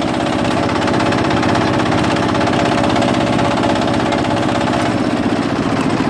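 Single-cylinder diesel engine of a walk-behind power tiller running steadily with a rapid, even chugging beat as the machine drives along.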